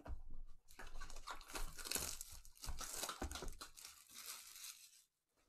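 Plastic shrink wrap being torn and crumpled off a sealed trading card box by gloved hands: an irregular run of crinkling and tearing that stops near the end.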